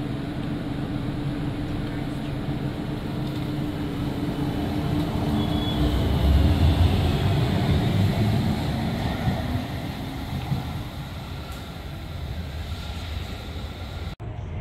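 Vehicle running: a steady low rumble with a humming tone, growing louder about six seconds in and then easing off.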